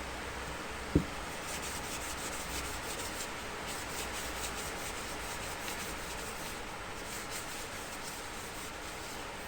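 Sandpaper rubbing on a turned wooden piece, a run of quick scratchy strokes. A single sharp knock comes about a second in.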